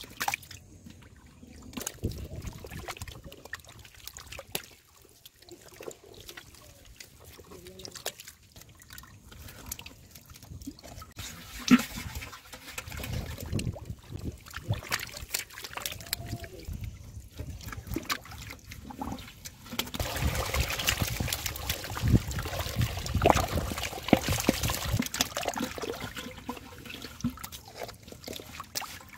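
Muddy water splashing and trickling as fish thrash and slide around a shallow pit below a row of pipe mouths, with water dribbling from the pipes. The splashes come irregularly and grow busier and louder in the second half.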